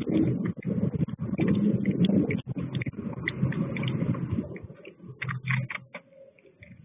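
Adult purple martin shifting and working in a nest of dry leaves inside a metal martin house while feeding its chicks: close rustling and scraping with many sharp clicks and taps. The noise dies down about four to five seconds in, leaving scattered clicks.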